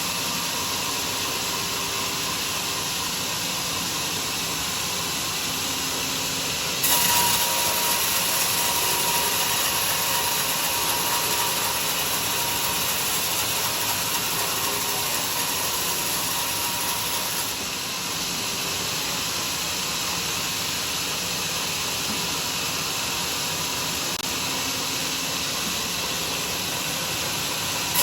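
Homemade sawmill's saw running steadily. For about ten seconds in the middle it gets louder and hissier as the blade cuts through durian wood.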